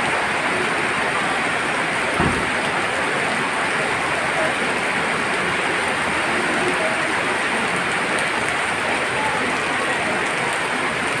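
Heavy rain pouring down steadily onto a gravel lot with puddles and parked vehicles, a dense, even hiss of the downpour. There is a brief low thump about two seconds in.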